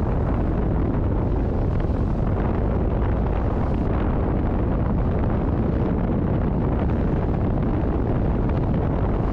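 Strong wind buffeting the microphone on a sailboat under way, a loud, steady low rumble with the rush of the sea along the hull beneath it.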